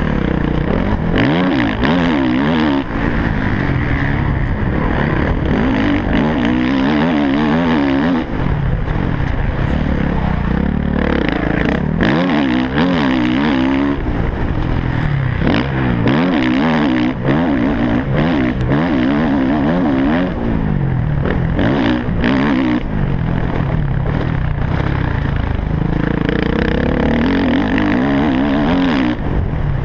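MX1 motocross bike engine revving hard, its pitch climbing and falling again and again as the rider races, heard loud from the rider's helmet camera.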